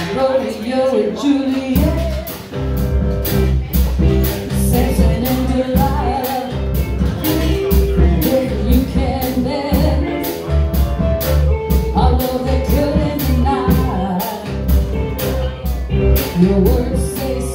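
Live rock band in a bar: a woman singing over electric guitars with drums. A heavy bass line comes in about two seconds in and the full band plays on.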